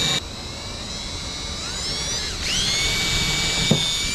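Power drill whining as it pre-drills screw holes. It falters briefly just after the start, climbs in pitch, dips sharply about two-thirds through as the bit bites, recovers, and stops at the end.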